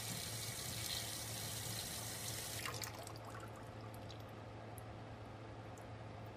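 Water running from a tap for about three seconds, then shut off, with a few light clinks as it stops. This is the water being drawn to heat after the hot water supply has cut out.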